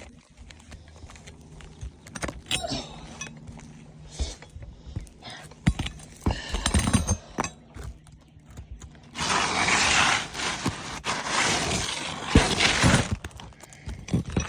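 Hands-on roof repair work on asphalt shingles: scattered knocks and clatter as shingles are handled and set, then about four seconds of loud, rough scraping noise from around nine seconds in, with a few sharp knocks.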